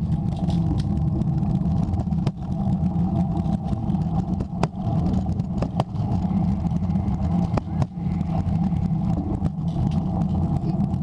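Kick scooter wheels rolling over a concrete driveway, a steady rumble picked up through a camera mounted on the scooter itself, with a few sharp clicks as the wheels cross joints or bumps in the pavement.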